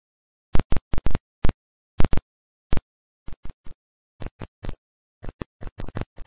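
A series of about twenty sharp forging hammer blows with dead silence between them. The first few are the loudest, and they come softer and closer together toward the end.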